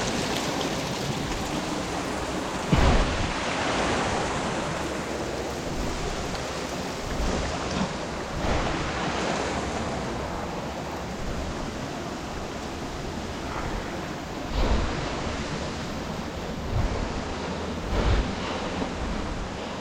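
Steady rush of water from a waterfall running low over rock, with a few low thumps, about three seconds, fifteen seconds and eighteen seconds in.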